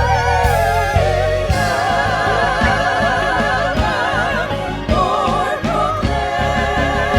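Live music with singing: several sustained, vibrato-laden vocal lines over a bass and a steady beat.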